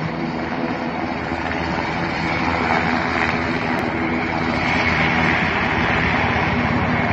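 Military helicopter's turbine engines and rotor running, a steady drone that grows gradually louder.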